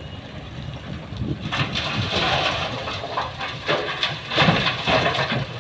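Coal pouring from a SANY excavator's bucket into the dump body of a six-wheel truck: a loud, rough rush that starts about a second and a half in and swells twice. Underneath, the excavator's diesel engine runs steadily.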